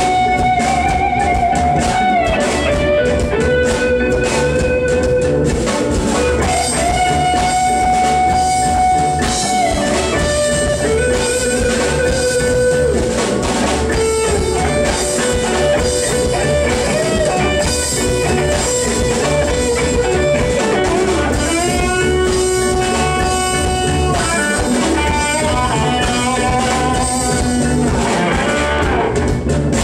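Guitar-led band music with a drum kit, in a bluesy style; the melody is a line of long held notes with vibrato.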